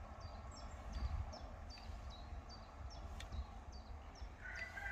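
Wind rumbling on the microphone, with a small bird repeating a short rising chirp about twice a second. Near the end a steadier whistled note starts.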